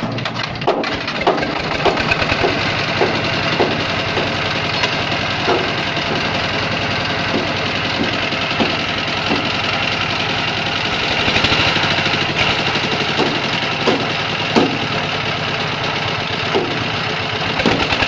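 Small concrete mixer's single-cylinder diesel engine running steadily, with scattered clanks and knocks over the drone.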